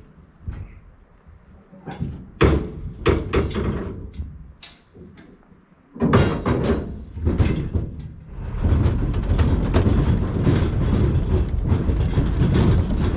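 A series of knocks and clunks, with a door slam, the loudest about two and a half seconds in and another heavy one around six seconds. Then, from about two-thirds of the way in, a truck's engine runs steadily.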